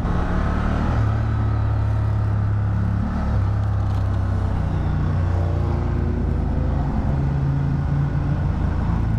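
Honda Transalp 750's 755 cc parallel-twin engine running at steady, fairly low revs while riding, with a few small shifts in engine pitch, under wind and road noise on a helmet microphone.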